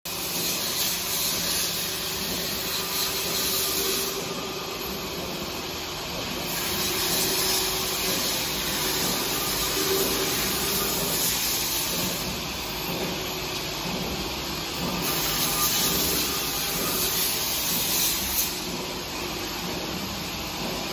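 An automatic weighing-filling and capping production line running, with a steady mix of motor hum and hiss from its conveyors and machines. The hiss strengthens and eases every few seconds.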